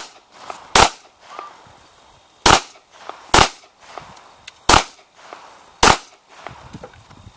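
Ruger SR9 9mm pistol firing six shots, roughly in pairs about a second apart with short pauses between the pairs. Each shot is a sharp crack.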